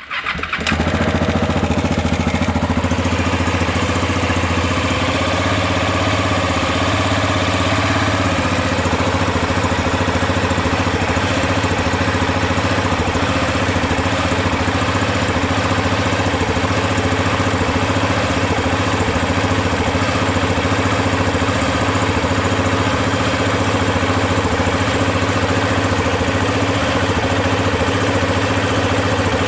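KTM 690 Enduro single-cylinder engine idling steadily when warm, with the valve chatter that the owner is chasing after a top-end rebuild with new rockers and re-shimmed valves.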